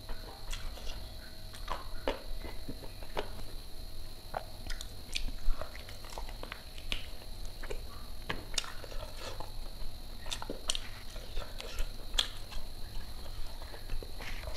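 Close-miked chewing and wet mouth smacks of a person eating rice and curry with her fingers, in irregular clicks a few times a second, over a faint steady high hum.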